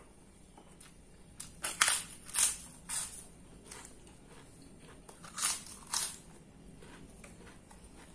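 Close-up crunching of kerupuk crackers being bitten and chewed: a run of sharp, loud crunches about two seconds in and another pair about five and a half seconds in.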